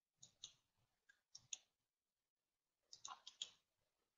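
Faint clicks of a computer mouse, about nine in small groups: a few in the first second and a half, then a quick run of four about three seconds in.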